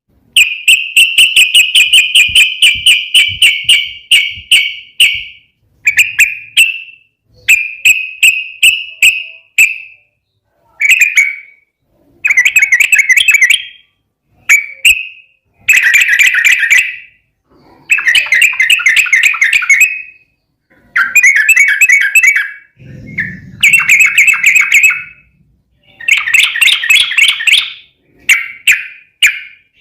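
Yellow-vented bulbul (trucukan) singing loudly in a string of fast, chattering phrases of quickly repeated notes, each phrase a second or two long with short pauses between.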